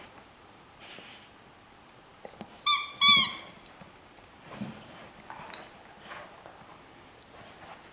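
A squeaky toy ball squeezed in an English setter puppy's jaws: two short high squeaks about half a second apart, the second rising and falling in pitch.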